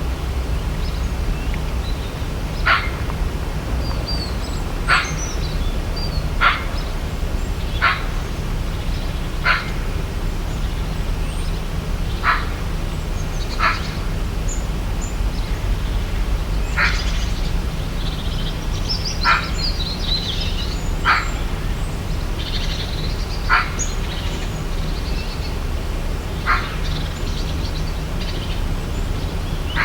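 Birds calling in tropical forest: one short, sharp call repeats every two seconds or so, while higher chirps from other birds come and go, over a steady low rumble.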